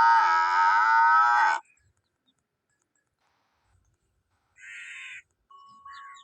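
Male buffalo bellowing: one long, loud call that wavers a little in pitch and ends about a second and a half in. Near the end come a couple of short, much fainter sounds.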